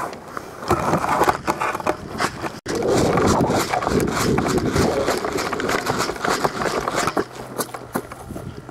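Close, loud rustling, scraping and crackling of movement through dry brush or leaves. The sound breaks off for an instant a little over two and a half seconds in.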